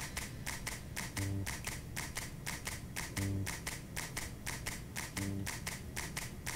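Background music with a quick, steady ticking beat and a low bass note about every two seconds.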